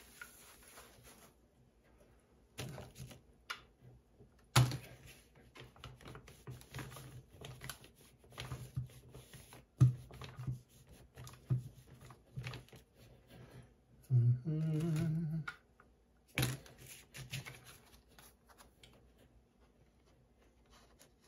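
Scattered small taps, scrapes and a few sharp knocks as a craft wax-painting iron is worked over a wax-painted card and moved about the worktable. A short hummed note about two-thirds of the way through.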